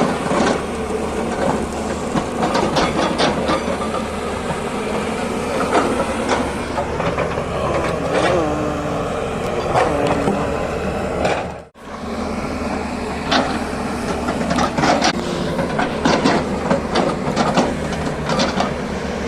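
Hydraulic excavator at work: diesel engine running steadily under many irregular metallic clanks and knocks. The sound cuts out for an instant a little past halfway.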